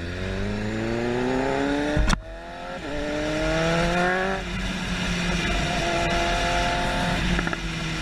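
Sport motorcycle engine accelerating hard through the gears: the pitch climbs, breaks with a sharp crack about two seconds in, climbs again, then drops back to a steady cruise a little after four seconds in.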